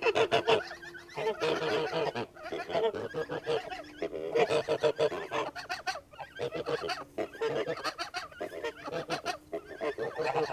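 A small flock of domestic grey geese honking and gabbling in quick, repeated bouts of calls, one bout after another with short pauses between them.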